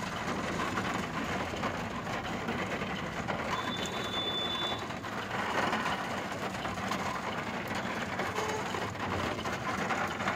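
Road traffic in heavy rain heard from a vehicle: a steady engine hum under a continuous hiss of rain and tyres through water on a flooded road. A brief high tone sounds about four seconds in.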